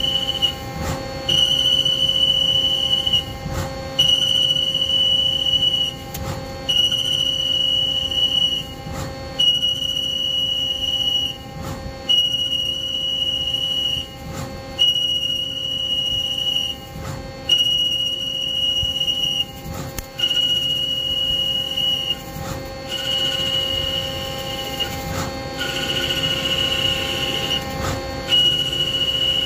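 CNC lathe single-point threading a Grade 8 steel bolt: the threading tool gives a high, steady whine on each cutting pass and breaks off briefly between passes, about every two and a half seconds, over a constant machine hum.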